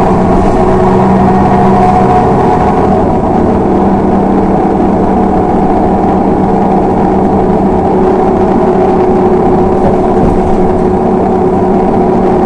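A LiAZ 6213.22 articulated diesel city bus under way, its engine and drivetrain giving a loud, steady hum with a few held tones that shift slightly in pitch as it moves.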